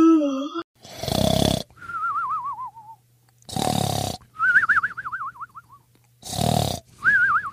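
Cartoon-style snoring sound effect, three times over: a loud rasping in-breath, then a wobbling whistle on the out-breath that slides down in pitch.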